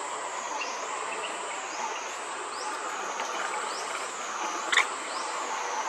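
Forest insect chorus: a thin, high-pitched call that pulses in a steady rhythm, a little faster than once a second, over a steady background hiss. One sharp click sounds near the end.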